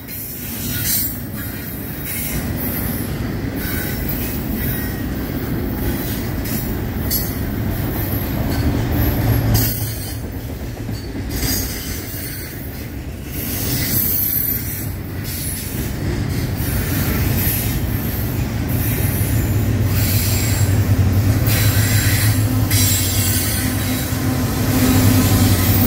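Double-stack intermodal railcars rolling past on a superelevated curve, their wheels squealing again and again over a steady rumble and clatter. Over the last several seconds the diesel of a mid-train GE AC44C6M helper locomotive comes up as a steady low drone and becomes the loudest sound.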